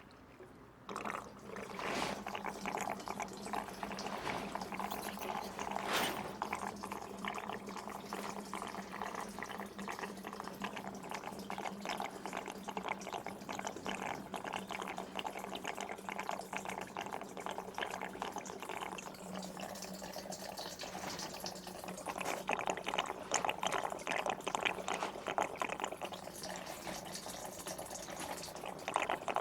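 Petrol siphoning out of a motorcycle fuel tank through a rubber hose and running into a fuel bucket: a steady splashing pour that starts about a second in and grows a little louder near the end, with a faint steady hum underneath.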